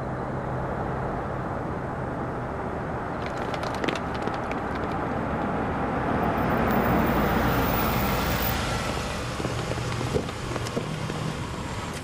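A car engine running as the car comes closer: it grows louder to a peak about halfway through, then eases off. A few light clicks come a few seconds in.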